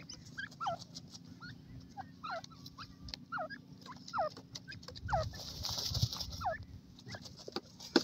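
Young francolins (teetar) giving short, downward-sliding peeping calls, one to two a second. Around the middle a stretch of scratchy scuffling joins them as the birds dust-bathe.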